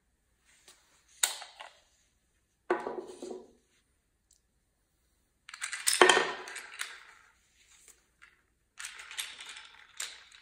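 Smith & Wesson M&P Shield pistol being unloaded: a click from the magazine release, then the steel magazine clattering onto the tabletop. The slide is racked back, ejecting the chambered cartridge, which clatters onto the table; this is the loudest part, about six seconds in. More metallic clacks come near the end as the slide is worked again.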